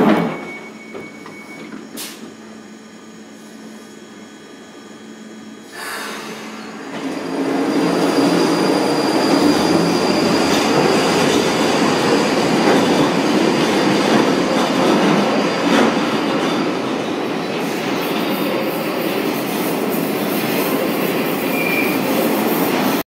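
London Underground 1995 Stock tube train pulling out of the platform. After a quieter few seconds, a loud, steady rumble of wheels on rail builds from about seven seconds in, with a faint high whine, and carries on as the train runs into the tunnel.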